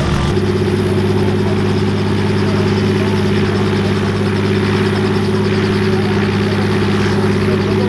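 Robinson R44 Raven II helicopter running on the ground before lift-off: its Lycoming IO-540 six-cylinder engine and turning rotors make a loud, steady drone at an even pitch, with a slight change in the low tones just after the start.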